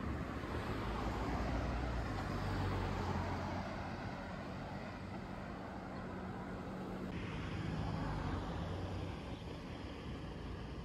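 Outdoor road traffic noise: a steady rush of passing vehicles, with a low engine hum that swells about two seconds in and fades out near the end.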